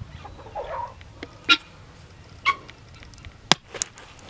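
Horse hoof trimmers snipping at a sow's overgrown claws, giving a few sharp clicks about a second apart.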